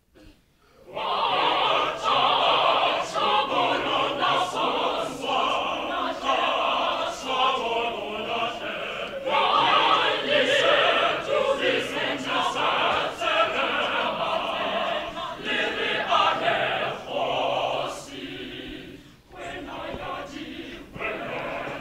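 A mixed choir of men's and women's voices singing, starting about a second in after near silence. The voices briefly drop away near the end, then carry on.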